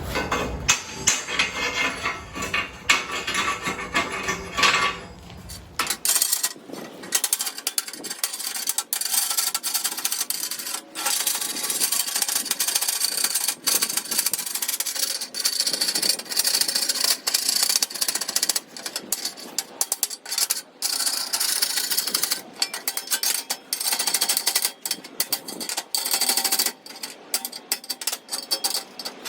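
Rapid, irregular metal-on-metal striking: hammer and chisel knocking slag off the edges of torch-cut quarter-inch steel plate.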